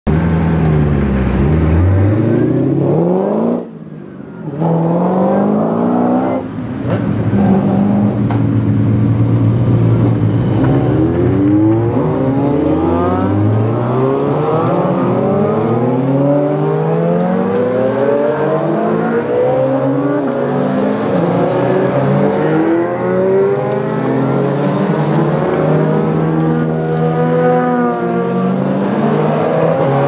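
Several classic racing sidecar outfits accelerating away one after another, their engines revving up through the gears in overlapping rising runs that drop back at each gear change. There is a short lull about four seconds in.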